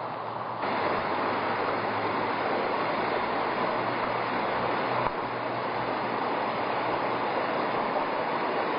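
Steady rushing outdoor noise of a wet street, rising in level about half a second in.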